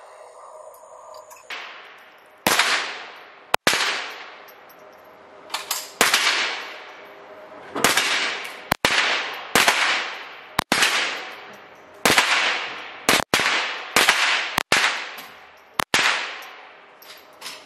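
A string of about fifteen semi-automatic rifle shots from an AR-style rifle, fired at an uneven pace of roughly one every half second to two seconds. Each crack carries an echoing tail from the indoor range. The first shot comes about two and a half seconds in.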